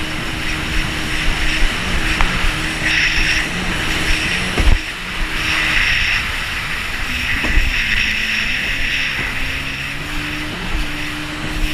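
Yamaha jet ski engine running under way, its pitch stepping up and down with the throttle, over the hiss of water spray. A sharp thump comes about halfway through.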